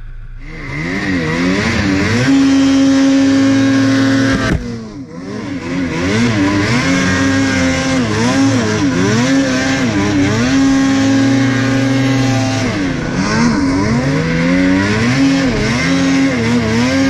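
Ski-doo Freeride 850 snowmobile's two-stroke twin engine revving hard while ridden through deep powder. The throttle is blipped up and down repeatedly and held high for a couple of seconds at a time. The engine drops off briefly about four and a half seconds in, then climbs again.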